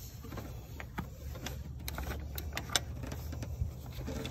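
Scattered light clicks and taps of hands and tools working on parts in a car's engine bay, over a steady low hum.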